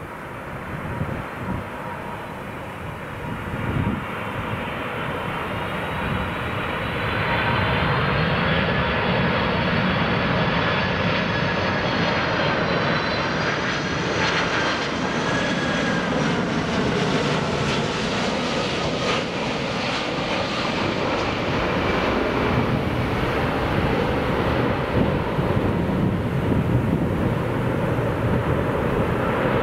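Airliner on final approach passing low overhead: its engine noise builds for several seconds, the whine drops in pitch about halfway through as it passes, and a steady rumble follows as it goes on toward the runway.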